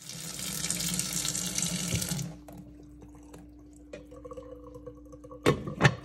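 Water pouring into a stainless steel pot of brining chicken for about two seconds, then a faint steady hum. Near the end, two sharp clanks as the metal lid is set on the pot.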